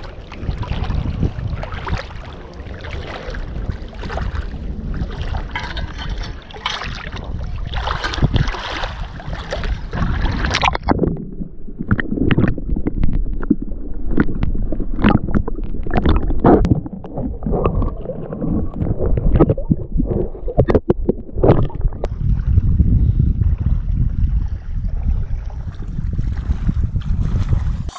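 Shallow seawater sloshing and splashing around a person's legs as they wade, with many short splashes and a low rumble of wind on the microphone. For a stretch in the middle the sound turns muffled.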